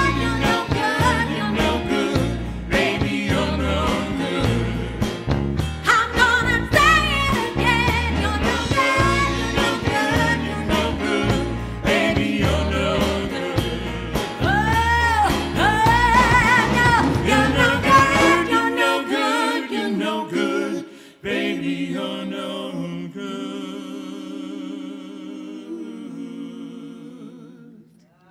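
A woman singing live with a small band, her voice carrying a bending melody over the accompaniment. About 19 seconds in, the band's low end drops away, and voice and softer accompaniment taper to a quiet close of the number.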